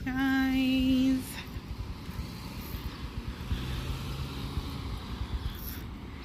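A voice holds one sung note with a wavering vibrato for about a second, then stops, leaving steady outdoor traffic noise.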